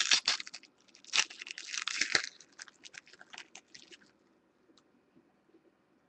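Trading-card pack wrapper crinkling and crackling as it is torn open by hand, in two dense spells, then a run of light clicks and rustles as the cards are slid apart. The clicks die away about four seconds in.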